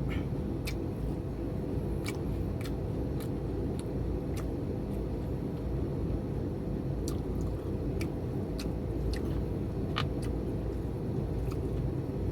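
A person chewing food, with scattered sharp clicks over a steady low rumble in the background.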